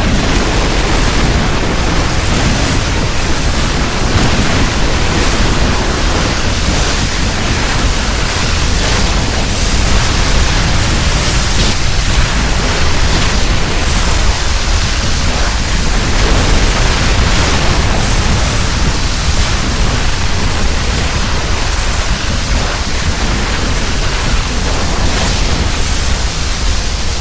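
A sustained rushing noise sound effect, like strong wind with a deep rumble beneath a hiss. It starts suddenly and eases off near the end.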